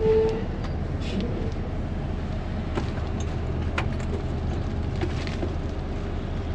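City bus engine idling steadily at a stop. A short beep sounds right at the start, and a few light clicks follow.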